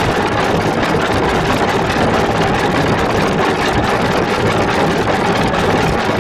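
Loud, steady, harsh distorted drone from a digitally processed sound effect: the same audio layered at raised and lowered pitch through a 'Monster' voice filter. It runs without a break and holds one faint steady tone.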